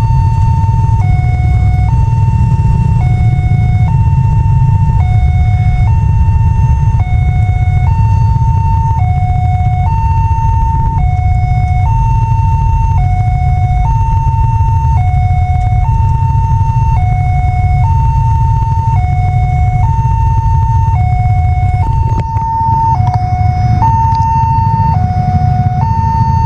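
Railway level-crossing warning siren sounding a steady two-tone hi-lo alarm, each tone held about a second, warning that the barriers are down and a train is due. A loud steady low rumble runs underneath.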